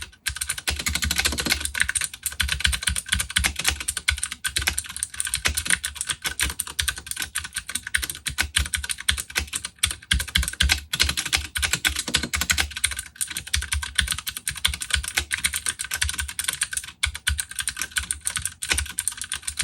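Fast, continuous typing on a Ducky One 2 Mini mechanical keyboard with clicky Cherry MX Blue switches.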